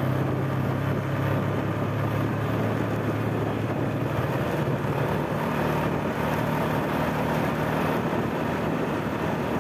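Steady low engine hum with road and wind noise from the vehicle carrying the camera, moving at an easy pace; the hum eases off about four seconds in.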